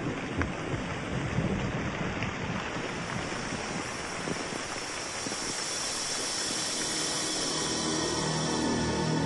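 Steady rushing noise of heavy rain with a few faint clicks. Near the end a sustained droning music tone fades in over it.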